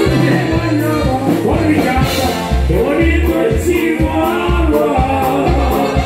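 Live norteño band music with a steady two-beat bass pulse under sustained melodic instrument lines.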